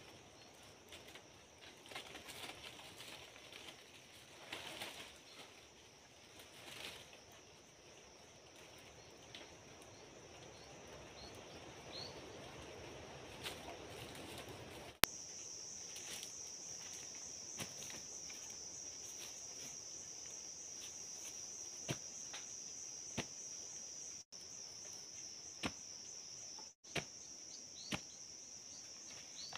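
Steady high buzz of insects in dry forest, louder from about halfway on. Over it, dry leaves and bamboo rustle as a snare trap is worked on in the first half, and sharp clicks and knocks of wood come every second or two later on.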